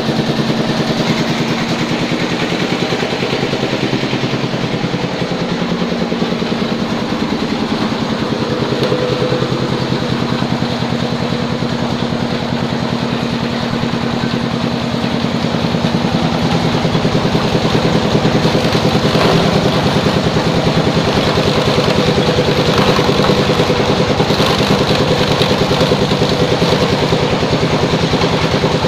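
A belt-driven meatball grinder runs steadily, powered by a small engine with a rapid, even pulsing beat. It grows a little louder about halfway through as the meat is fed in.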